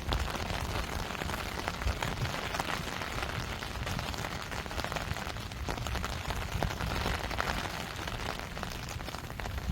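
Steady rain falling, with many individual drops ticking.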